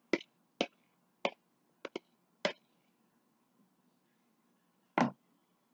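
Metal spoon knocking and scraping against a plastic bowl to get the last of the sauce out: about six short knocks in the first two and a half seconds, then a louder one about five seconds in.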